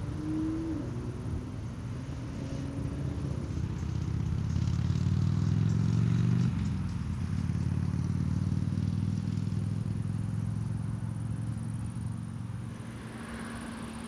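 A John Deere C670i HillMaster combine harvester running while it harvests wheat: a steady machine drone that grows louder to a peak about six seconds in, then eases a little and stays steady.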